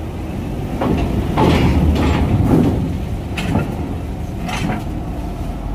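Heavy truck moving slowly onto a ferry's loading ramp: a low engine rumble with a series of clunks and knocks about a second apart.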